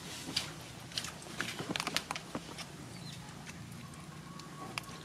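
Litter of puppies suckling from their mother, with a run of small wet clicks and smacks about one and a half to two and a half seconds in.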